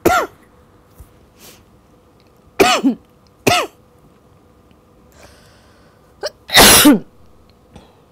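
A woman coughing in separate bursts: one cough at the start, two more close together about a third of the way in, then a short cough and a longer, louder one near the end.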